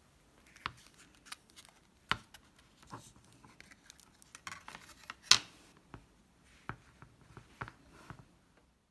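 Thin clear plastic chocolate-bar mould being flexed and peeled off a set chocolate bar, giving irregular crackles and clicks as the chocolate releases, the loudest a little past five seconds in.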